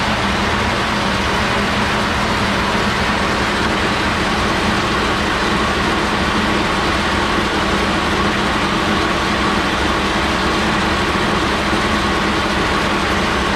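Home-built micro-hydro power plant running: water driving the turbine in its housing and a belt spinning the pulley of the generator, making a loud, steady whirring rush with a faint hum.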